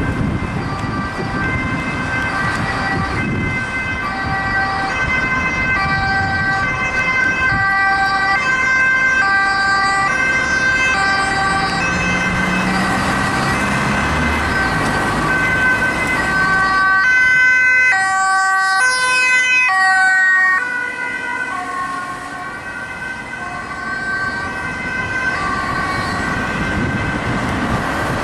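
Dutch ambulance's two-tone siren alternating between a high and a low note, each held about three-quarters of a second, with traffic noise beneath. It is loudest about two-thirds of the way through as the ambulance passes, then fades as it drives off. It signals an urgent run with lights and siren.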